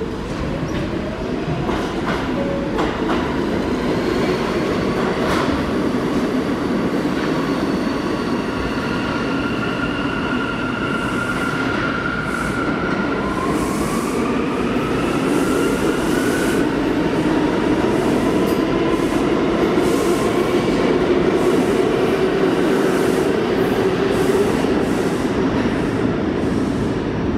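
NYC subway trains in the station: an R46 car pulling out with its motors rising in pitch, then a continuous rumble of train wheels on rail with squealing tones and repeated clicks over the rail joints as another train comes through.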